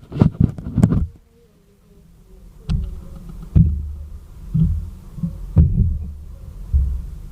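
Irregular dull thumps and knocks with a few sharper clicks: a spoon stirring and knocking in a small pot of thick flour-and-powdered-milk dough. A quick cluster of knocks comes at the start, then single thumps every half second to a second from about a third of the way in.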